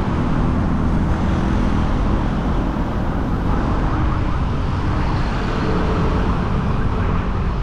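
Steady rush of wind on the microphone of a bike-mounted action camera while cycling, with road traffic beneath it.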